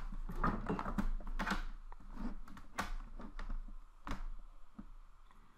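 A run of quick clicks of keys being tapped, as in typing. They are thickest over the first three seconds and thin out toward the end.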